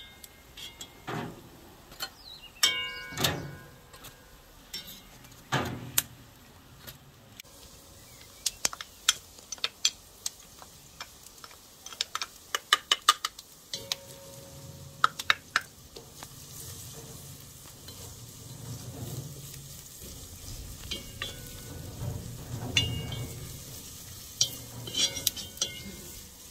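Wooden spoon knocking and scraping against a metal pot while sliced onions fry in it with a light sizzle, along with the clink of metal pans moved on the grill grate. The knocks come thick and quick in the first half, and the sizzle is steadier in the second half.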